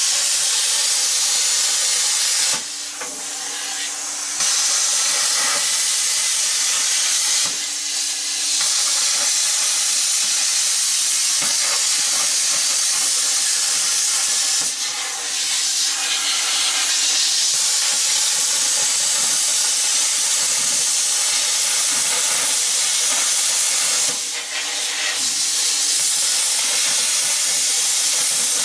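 Plasma cutter hissing steadily as it cuts through the fins of a furnace blower's squirrel cage fan, with a few brief dips where the cut stops and starts again.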